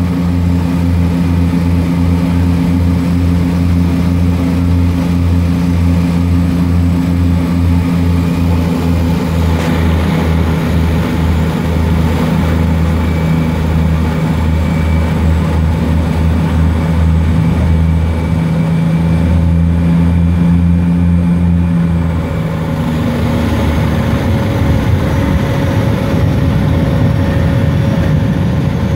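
Seaplane propeller engines heard from inside the cabin on the descent to a water landing, a loud steady drone with a low pulsing hum. About 23 seconds in the lower hum fades and the engine note changes, leaving a rougher rushing roar.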